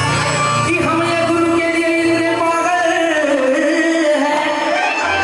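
A man singing long held, gently bending notes of a devotional song, with low sustained instrumental accompaniment underneath.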